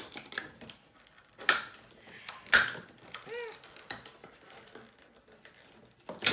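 Stiff clear plastic packaging being handled and pulled apart: a string of small clicks and crackles, with two sharp, loud cracks in the first half.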